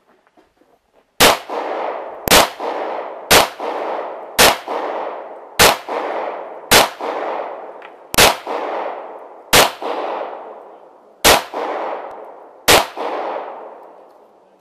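Pistol fired ten times at a steady, unhurried pace, about one shot a second and slowing slightly toward the end, each sharp crack followed by a long echo that fades away.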